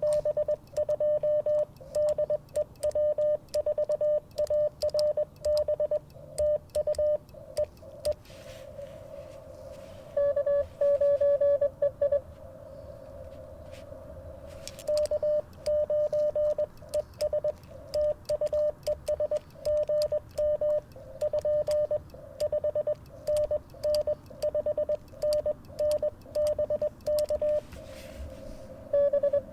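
Morse code (CW) from an Icom IC-705 ham radio transceiver: a single steady tone keyed rapidly on and off in dots and dashes. It stops for a few seconds of receiver hiss about eight seconds in, again at about twelve seconds, and near the end.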